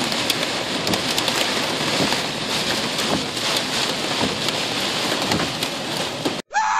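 Heavy rain pelting a car's roof and windshield, heard from inside the car as a dense, steady patter of drops. It cuts off abruptly near the end and a held musical tone begins.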